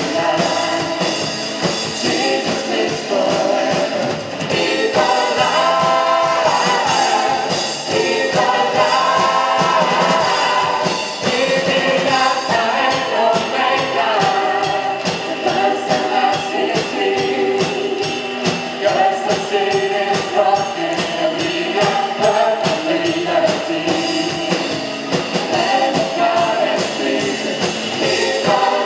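Live worship praise team singing together over full band accompaniment, a contemporary gospel song.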